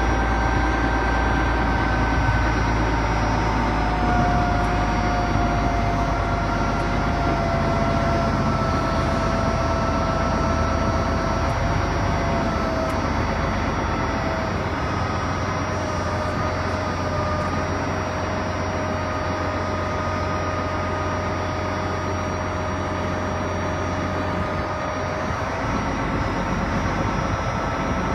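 Komatsu GD705A motor grader's diesel engine idling steadily: a low rumble with a faint whine that drifts slowly lower in pitch.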